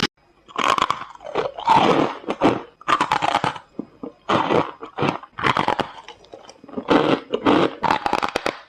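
Bites and chewing of hard freezer-frost chunks, giving squeaky crunches. The crunches come in a run of separate crackling bursts, each lasting about half a second to a second, with short pauses between them.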